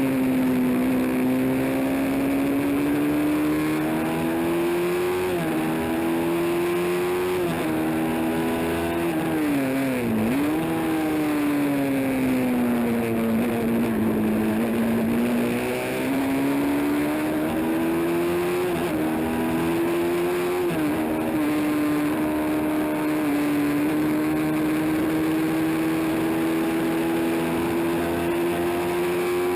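Honda CB350 racing motorcycle engine running hard at high revs. Its pitch climbs and falls throughout, with several quick drops and a sharp dip about ten seconds in.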